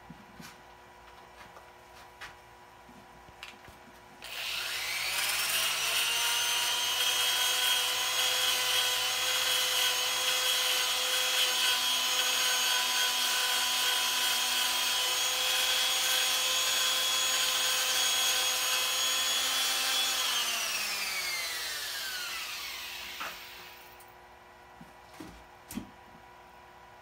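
A handheld electric power tool spins up about four seconds in, with a rising whine. It runs at a steady high whine for about fourteen seconds, apparently worked on a small wooden piece, then winds down with falling pitch over about three seconds. There are a few light knocks of handling before and after.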